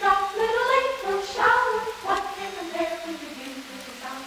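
Music with a singing voice carrying a melody.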